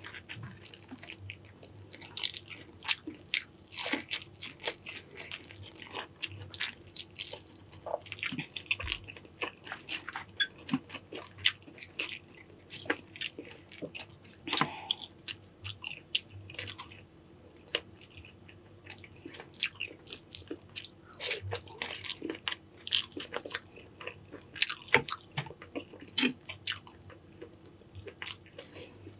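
Close-miked eating: a person chewing, biting and crunching through a Cajun-sauced seafood boil, with many irregular wet clicks and smacks.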